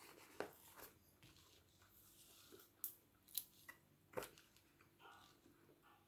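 A handful of faint, sharp clicks and taps from small hard parts being handled, about five spread over a few seconds.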